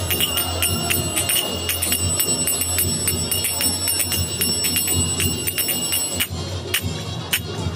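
Saroyan Nefertiti finger cymbals (zills) played in a quick, even pattern of about four strikes a second, each strike ringing with a bright, high tone. Near the end the pattern thins out to a few single strikes.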